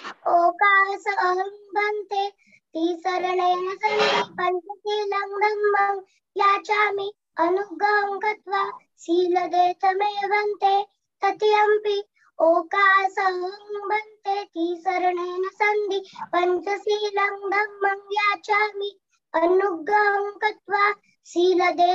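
A young girl chanting a Buddhist devotional verse, on a nearly level pitch in short phrases with brief breaths between.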